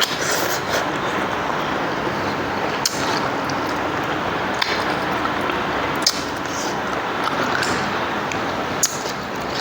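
A person eating a meal of goat meat curry with rice: chewing and squishing sounds with about six sharp clinks spread through, over a steady background noise.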